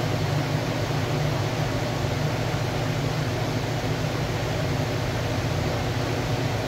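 Steady room noise of a large indoor hall: an even hiss over a low hum, with no distinct events.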